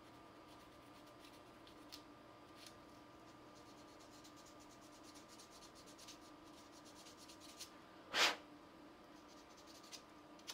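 Light hand-sanding of a cast-resin model part: a few faint scratching strokes, one louder stroke about 8 seconds in, over a steady faint hum.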